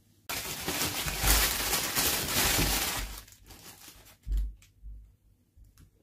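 Clear plastic wrapping crinkling loudly as hands handle it for about three seconds, then softer rustles and a brief dull bump.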